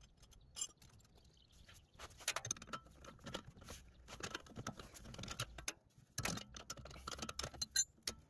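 Irregular light clicks, taps and scrapes of metal hand tools and bolt hardware being worked on a car's rear suspension.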